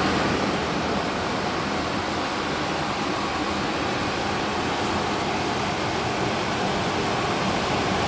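Engineered Air Systems HDU-36E 120,000 BTU diesel-fired military space heater running: a steady rush of air from its blower.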